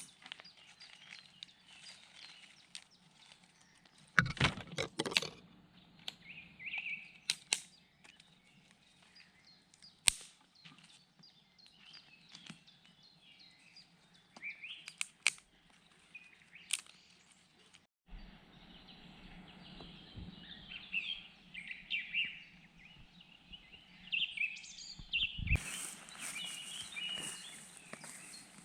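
Forest birds chirping and calling, with scattered sharp clicks and cracks, the loudest a cluster about four seconds in. A steady hiss comes in near the end.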